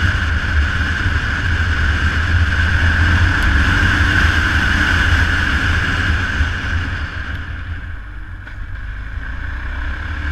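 Onboard sound of a riding motorcycle: a steady engine drone under heavy wind rush on the microphone, getting a little quieter near the end.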